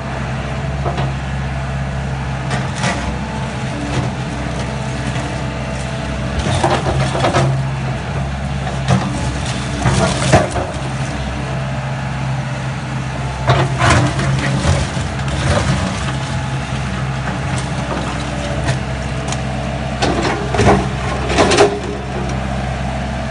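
JCB 130 W wheeled excavator's diesel engine running steadily. Several times, rubble clatters and scrapes as the bucket works through broken brick and concrete.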